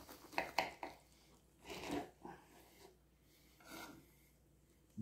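Kitchen knife sawing through a bacon-wrapped pork tenderloin on a wooden cutting board: a few faint clicks about half a second in, then short rasping strokes around two seconds and again near the end as the slice comes free.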